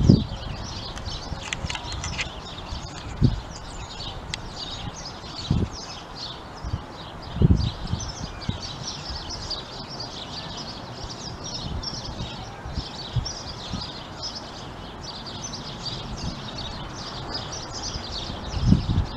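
Many small birds chirping and singing all the while, with a few brief low thuds of wind buffeting the microphone.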